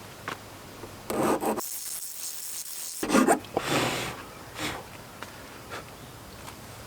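A hand file rasping on the bottom edge of the lock opening in an RV entry door, a few uneven strokes to enlarge the opening so the new lock sits lower.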